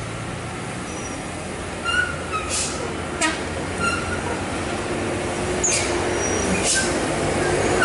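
Heavy trucks and a bus running slowly up a steep climb: a steady low diesel engine drone that grows louder toward the end. Over it come several short hisses and brief high squeaks.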